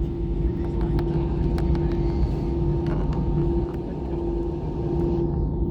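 Airbus A320 cabin noise after landing: a steady low rumble of engines and wheels with a constant hum tone, and light rattles and clicks from the cabin. The upper hiss falls away about five seconds in.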